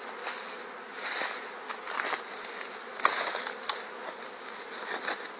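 A flying honeybee swarm buzzing around, the bees circling in toward a swarm lure before settling. Leaves rustle louder about one and three seconds in.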